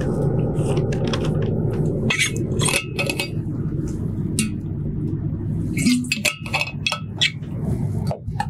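A scattering of light clicks and clinks, a few with a brief ring, over a steady low hum.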